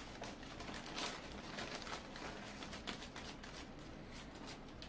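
Brown kraft packing paper rustling and crinkling in irregular crackles as it is pulled off a small potted plant.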